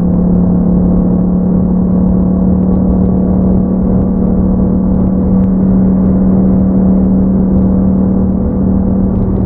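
A 2021 Yamaha MT-07's 689 cc parallel-twin engine running through an Akrapovic exhaust, held at a steady engine speed on a constant throttle while riding. The exhaust note stays at one pitch throughout.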